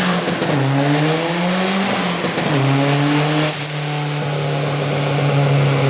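Turbocharged Ford Focus engine at full throttle on a dyno pull. It revs up, shifts gear about two seconds in and revs up again, then holds steady revs from about halfway. A high whistle rises and falls with the revs.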